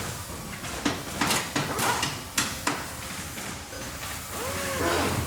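Factory machinery ambience: a steady mechanical din with a quick run of sharp knocks and clanks in the first half, and a brief wavering pitched sound near the end.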